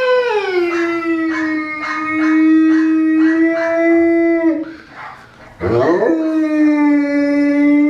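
Newfoundland dog howling: two long howls, the first sliding down in pitch at its start and then held steady for about four and a half seconds, the second beginning about halfway through and still going at the end.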